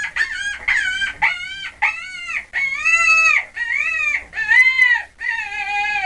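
A rapid series of high-pitched animal calls, each rising and then falling in pitch, with a longer call about three seconds in.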